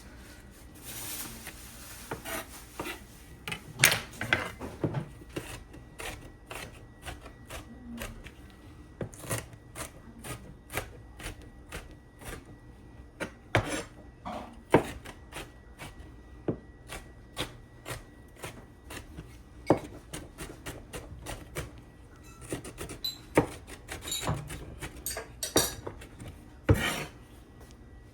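Knife chopping food on a wooden cutting board: a long run of sharp knocks, about two a second.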